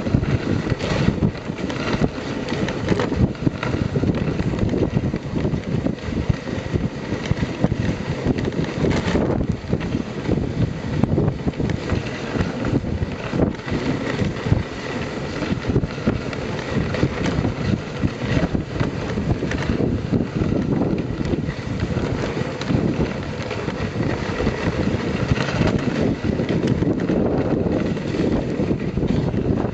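Wooden dog sled gliding over a packed snow trail: a steady, jolting scrape and rush of the runners on the snow, with wind buffeting the microphone.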